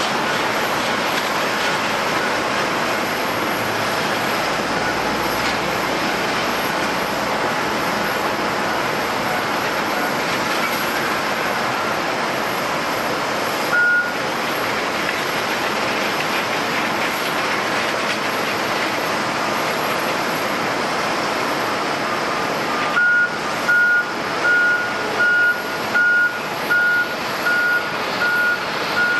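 Steady noise of running jet aircraft engines at an airport. A vehicle's reversing alarm gives a single beep about halfway through, then beeps regularly, about once every 0.7 s, in the last several seconds.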